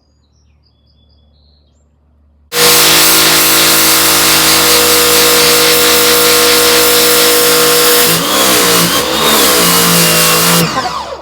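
Pressure washer running loud and steady with a high hiss, starting suddenly about two and a half seconds in. From about eight seconds its pitch wavers, and it cuts off near the end. Faint bird chirps come before it starts.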